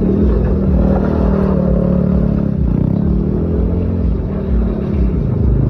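ATV engine running and revving, its pitch slowly rising and falling over a heavy low rumble.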